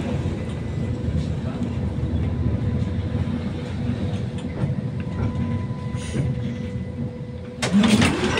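Tram riding along the line, heard from inside the car: a steady low rumble of the wheels on the rails with a thin, steady electric hum. Near the end the sound turns abruptly louder and busier.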